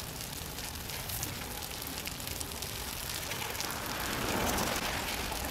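A stick of chalk scraping across wet, rough asphalt in drawing strokes, with a broader scrape about four seconds in, over a fine steady crackle.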